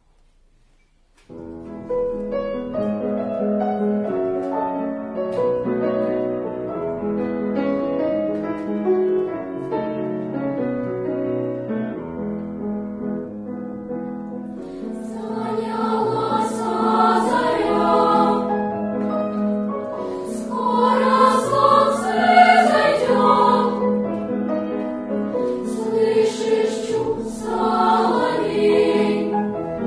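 Children's choir singing with piano accompaniment. The music starts about a second in and grows louder from about halfway, with the sung words coming through more sharply.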